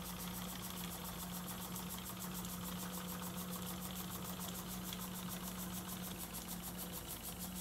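Small homemade twin-cylinder oscillating steam engine running steadily with no load, its cylinders and flywheel making a rapid, even ticking beat over a steady low hum. The gearbox is disconnected because the engine lacks the power to drive it, which the builder puts down to a partly blocked burner starving two of its three wicks.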